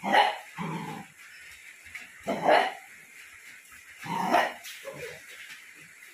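Young Indian native-breed street-dog puppy barking: three loud short barks about two seconds apart, each followed by a softer one.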